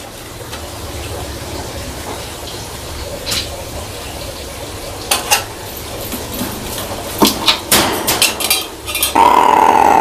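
Pet black crow moving about its wire cage, with scattered sharp metallic clinks and taps of beak and toy against the bars and fittings. Near the end comes one loud, harsh caw.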